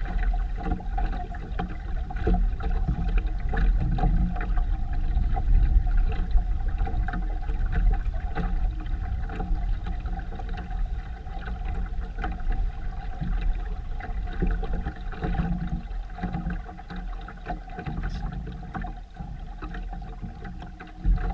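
Wind rumbling on the microphone and water noise aboard a boat under way, with a steady hum underneath.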